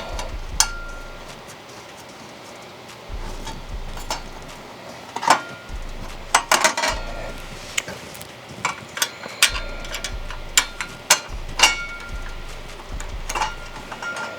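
Metal parts of a steel PC case clinking and knocking as a bracket is worked loose and handled: irregular sharp clicks and taps, more frequent after about five seconds, a few leaving a short ringing note.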